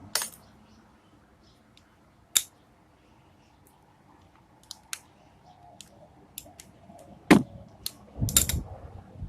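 Scattered clicks and knocks of tools and small parts being handled while a mower's plastic carburetor is taken apart, with two sharp knocks, one a couple of seconds in and one about seven seconds in, and a burst of clatter near the end.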